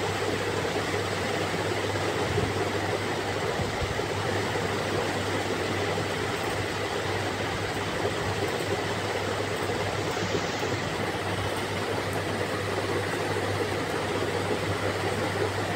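Steady background noise with a constant low hum, unchanging throughout.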